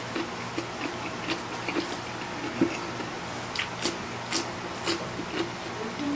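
Close-miked eating sounds: wet chewing and mouth smacks of spicy instant noodles, with scattered short clicks and a few crisp bites.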